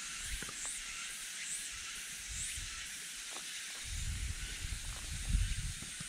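Steady, high-pitched hiss of a summer cicada chorus in the forest, with a few faint rising chirps in the first half. Light footsteps on a gravel path, and a low rumble of wind on the microphone between about four and five and a half seconds in.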